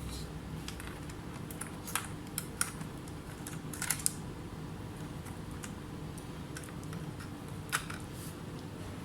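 Scattered light clicks and taps from handling a laptop and its parts on the bench, irregular rather than a steady typing rhythm, over a steady low hum.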